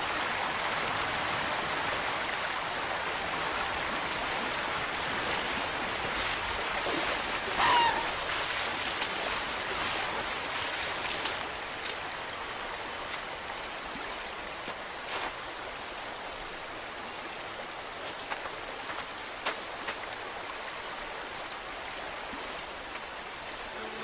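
Swift river current rushing steadily, dropping a little in level after about eleven seconds. About eight seconds in, a red fox gives one short, high bark over the water.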